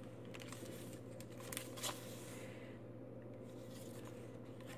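Pages of a handmade journal of paper envelopes being turned by hand: soft paper rustles and flicks, the sharpest a little under two seconds in, over a steady low hum.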